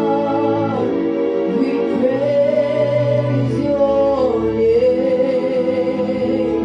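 Gospel praise-and-worship song: slow singing in long held notes with gliding pitch.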